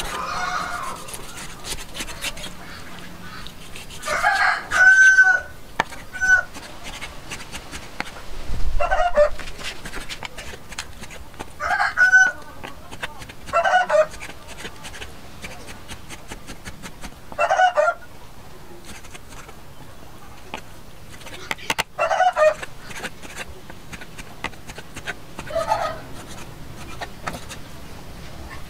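Rapid, continuous knocking of a cleaver chopping raw pork on a round wooden chopping board, while chickens call about eight times, the longest call about four seconds in.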